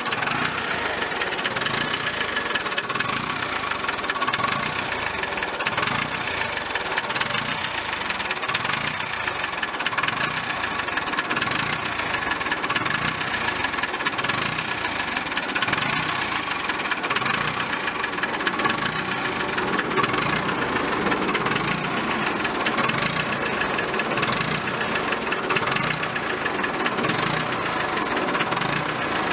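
Diesel engine of a 1955 Nuffield DM tractor idling steadily, with a regular slow pulsing beat in its low end.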